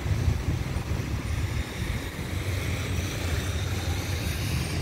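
A steady low engine rumble with a faint hiss above it, mixed with wind buffeting the microphone.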